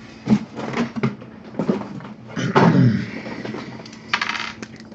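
Tabletop handling sounds: a few sharp knocks and clicks, a heavier knock about halfway through, and a short rattle near the end.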